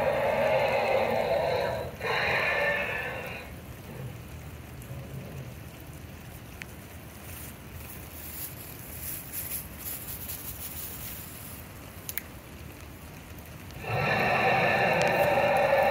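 Recorded T. rex roar played loudly through the life-size dinosaur display's speakers. It comes in two bursts at the start and starts again near the end, with quiet open-air background between.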